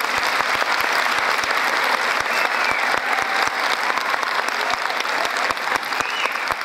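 Audience applauding steadily after a trophy presentation.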